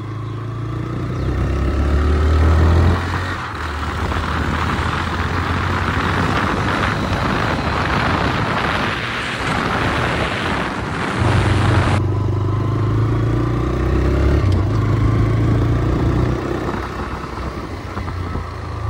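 TVS Raider 125's single-cylinder engine under way on the move, its note rising as it picks up speed in the first few seconds. A loud rush of wind and road noise then covers it, cutting off suddenly about twelve seconds in, after which the engine is heard plainly again.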